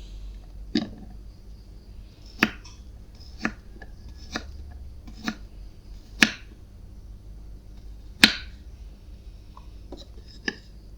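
Knife cutting bilimbi (belimbing wuluh) fruit into thin slices, each cut ending in a sharp tap; about eight cuts, spaced roughly a second apart.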